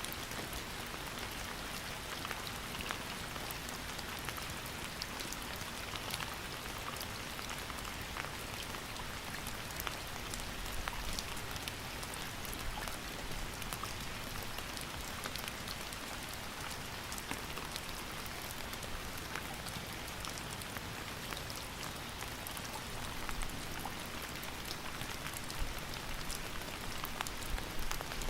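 Steady rain falling, an even hiss with many distinct drops ticking on a surface.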